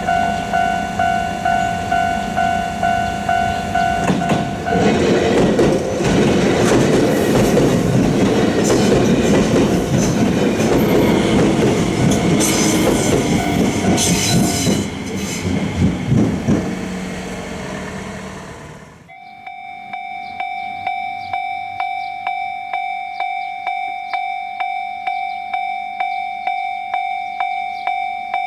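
Japanese railway level-crossing warning bell ringing its steady clang-clang while a train rumbles and clatters through the crossing from about five seconds in. The train noise and the bell die away, and after a sudden cut another crossing's bell rings steadily at a slightly higher pitch.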